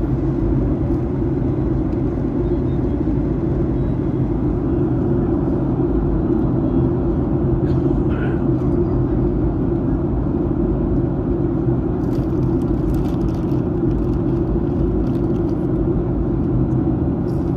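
Steady cabin noise inside a Boeing 737-900ER in descent: air rushing over the fuselage and the hum of its CFM56-7B engines, level and unchanging.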